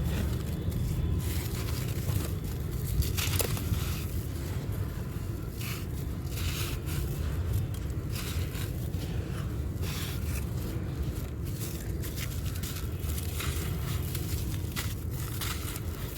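A dry, crunchy block being crushed and crumbled, giving irregular crisp crunches and crackles, over a steady low hum.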